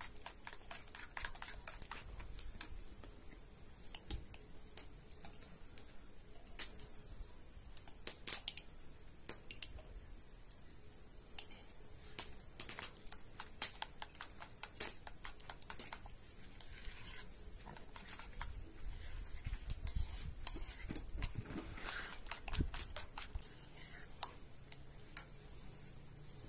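Metal spoon stirring thick strained yogurt in a ceramic bowl, with irregular clinks and taps of the spoon against the bowl.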